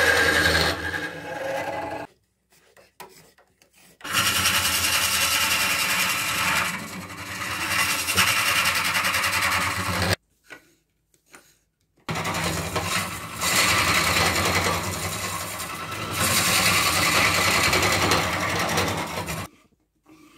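Hollowing tool cutting inside a spinning monkey puzzle wood vase on a lathe: a loud, rough scraping in three spells, broken by short silences about two seconds and about ten seconds in, and stopping shortly before the end.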